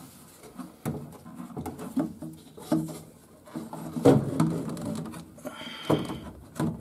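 Irregular knocks and scrapes of a black plastic draft-inducer blower housing, a Fasco A170, being handled and pushed up against a furnace's sheet-metal cabinet and vent pipe while it is test-fitted. The loudest bumps come about four seconds in and again about six seconds in.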